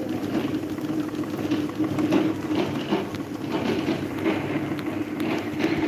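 Electric table fan running: a steady motor hum with the rush of the blades and light irregular clicking.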